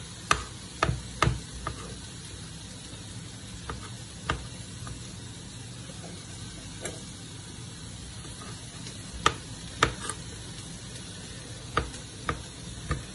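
Knife slicing a chicken sausage into rounds on a chopping board: about a dozen sharp knocks at irregular intervals as the blade meets the board. A steady sizzle of vegetables frying in a pan runs underneath.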